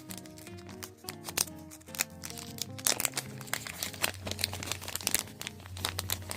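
Plastic packaging crinkling and crackling in irregular bursts as it is handled and unwrapped, over background music.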